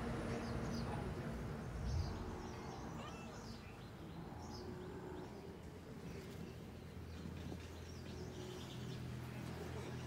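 Faint, scattered bird chirps over a low, steady rumble of outdoor background noise.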